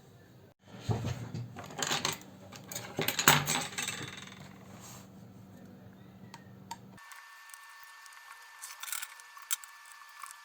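Small screws and a screwdriver clicking and clattering against a netbook's plastic case as its screws are taken out, loudest about three seconds in. After that only faint scattered clicks.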